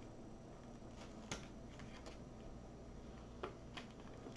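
Faint rustling and a few soft crackles of a diamond painting canvas's plastic cover and paper being unrolled and handled, over low room hum.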